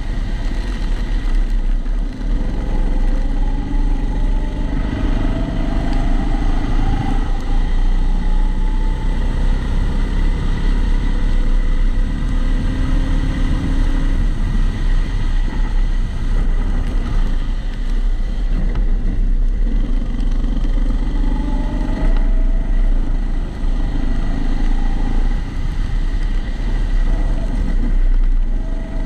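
Kombikart Eco kart engine running under load, its pitch rising and falling as the kart accelerates and brakes, heard through a waterproof camera housing. A steady high whine runs underneath, which the uploader puts down to the housing.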